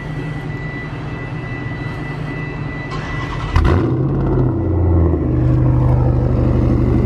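Chrysler 300 sedan's engine cold-started: it catches suddenly about three and a half seconds in, its revs flare briefly, then it settles into a steady idle.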